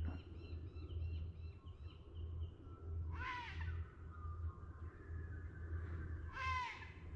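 A crow calls twice, about three seconds apart, each call falling in pitch, over faint repeated chirping of small birds.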